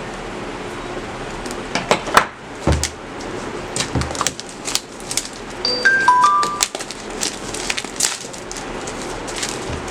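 Cardboard smartphone retail box being handled and opened by hand: irregular taps, clicks and knocks, a few with dull thumps, over a steady hiss. About six seconds in, a short chime of three or four quick beeps at different pitches.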